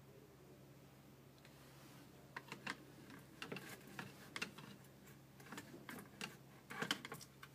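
Light, irregular plastic clicks and taps from a hand handling the plastic handles of LED light sticks. They start about two and a half seconds in and come in small clusters, the loudest just before the end.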